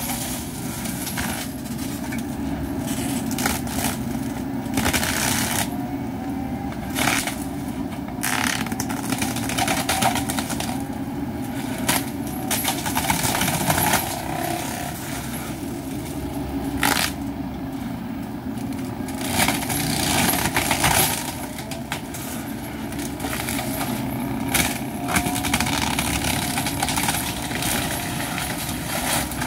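Wacker Neuson ET65 mini excavator's diesel engine running steadily under load, driving a hydraulic forestry mulcher whose spinning rotor chews through shrubs and branches. Irregular sharp cracks and crackles of wood being shredded break through the drone every second or two.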